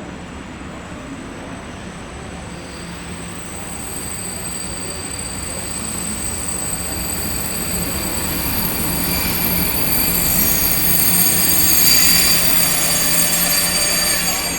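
Passenger train pulling into a station: rolling noise growing steadily louder, with high-pitched squealing of wheels and brakes on the rails, loudest about twelve seconds in.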